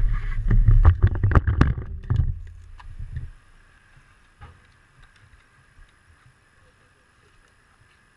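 Knocks, bumps and rubbing of a handheld action camera being moved and set down, loud over the first two to three seconds. Then near silence with a few faint clicks.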